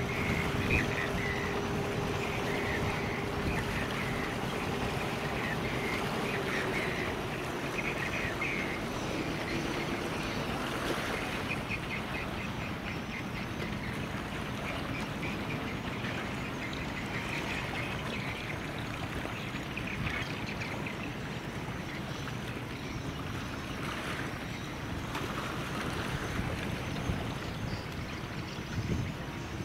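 Steady outdoor noise of boat engines and moving water, with a low engine hum in the first several seconds that fades out. Short higher-pitched calls come and go, mostly in the first half.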